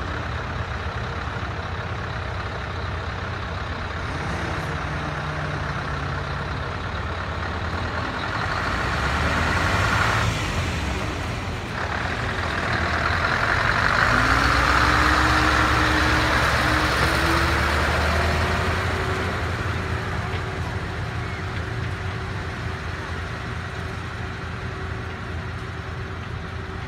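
Scania V8 tractor unit driving slowly past at close range, its engine running steadily and loudest about halfway through as it passes. A rising whine comes in around the middle and then holds steady.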